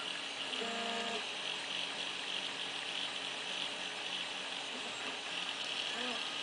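Homebuilt H-bot 3D printer with NEMA23 stepper motors running, giving a steady high-pitched whine and hiss. A short pitched tone from a stepper move sounds about half a second in.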